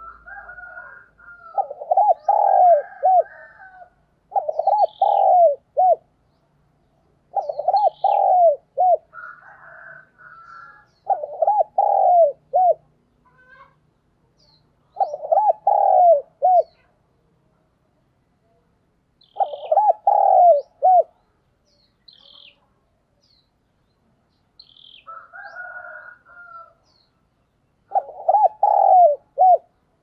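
Spotted dove cooing: its song repeated about seven times, each phrase a quick run of several low coos, roughly every four seconds. Fainter, higher calls and small bird chirps come in between.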